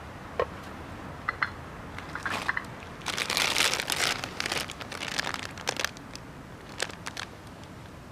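Crinkling and rustling of something being handled, heaviest in the middle, with a few sharp clicks before and after.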